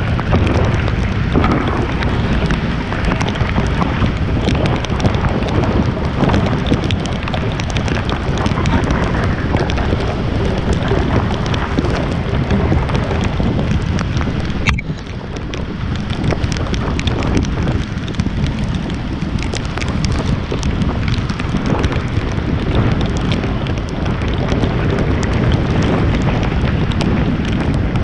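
Wind buffeting the microphone: a loud, continuous rushing noise, heaviest at the low end, with a brief drop about fifteen seconds in.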